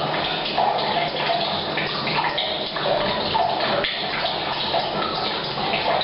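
Rain falling on a roof mixed with mains water pouring from a pipe into a storage tank, a steady rushing and splashing that echoes in a bathroom.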